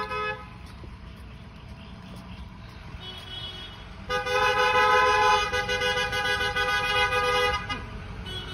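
Car horns honking from passing cars over a low rumble of engines. A honk cuts off just as it begins, and a louder two-note honk starts about four seconds in and holds for nearly four seconds.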